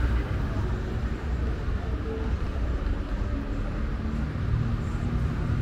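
City street ambience: steady traffic rumble without distinct events.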